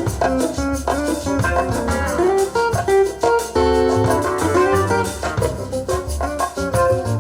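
Instrumental music with plucked guitar over a bass line, played back through Dynaudio Confidence 30 loudspeakers.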